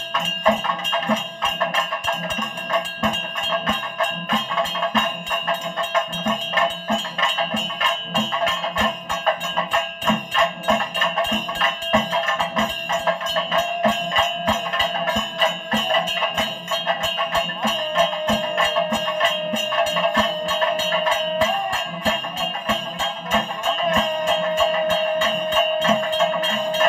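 Temple puja music of fast, steady percussion strokes under high ringing tones. A long held tone sounds twice in the second half, each time ending with a short upward bend.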